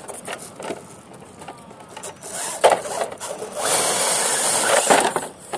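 Axial Honcho RC rock crawler's electric motor and gears whirring as it climbs, with its tyres clicking and scraping over rock; the sound grows louder from about two seconds in.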